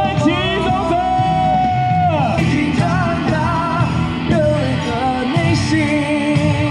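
A song playing: a sung vocal melody with held and gliding notes over a full band accompaniment.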